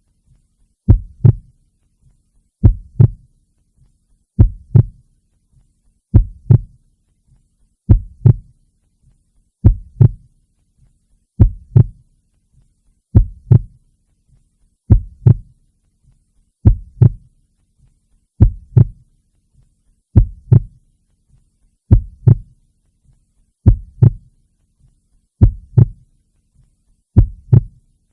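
Heartbeat sound: a slow, even lub-dub, two low thumps close together, repeating about once every 1.8 seconds.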